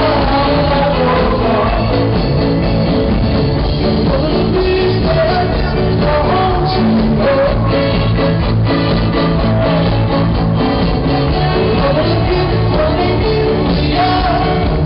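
Live rock band playing a song at full volume through a stadium sound system, with a lead vocal over guitars, bass and drums, heard from within the audience.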